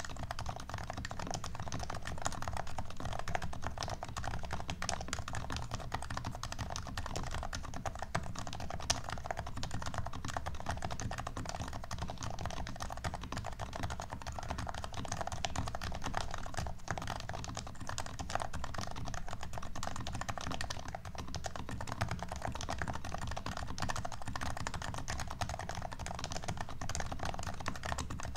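Continuous typing on a Topre electrostatic-capacitive keyboard: HHKB Pro 2 45 g rubber domes with silencing-ringed sliders in lubed Realforce housings, on a top-mounted aluminium plate. The keystrokes come as a dense, steady stream of muted clicks with a deep, thocky sound.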